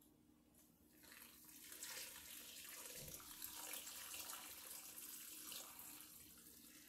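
A thick, fizzy beer-and-flour liquid being poured from a bowl into a pressure cooker pot. It is a faint, steady pouring and splashing that starts about a second in.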